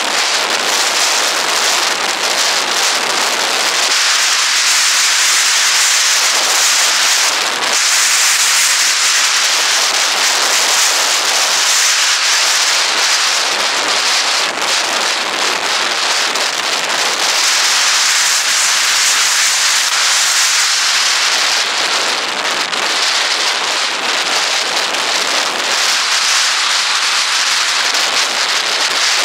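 Wind rushing over the microphone of a camera on a moving motorcycle: a steady loud hiss with crackle, and no clear engine note above it.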